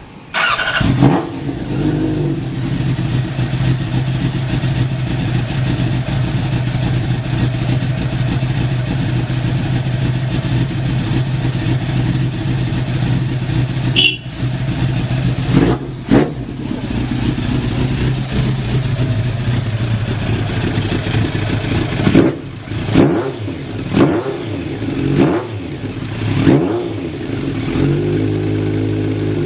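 Kawasaki ZZ-R1100 inline-four motorcycle engine catching on the starter right away and settling into a steady idle, then blipped with the throttle a handful of times, each rev rising and falling back to idle. The idle is stable with no abnormal noise.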